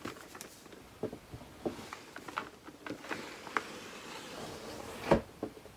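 Cardboard toy packaging being handled: a boxed action figure slid out of its outer cardboard sleeve, with scattered light taps and scrapes and one sharper knock about five seconds in.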